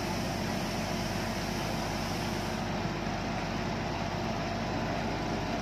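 Fire engine running steadily at the fire ground: an even, unbroken engine drone.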